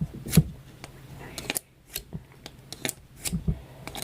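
Multi-tool knife blade drawn through a knife sharpener: a string of short, irregular metal scrapes and clicks, the loudest about half a second in.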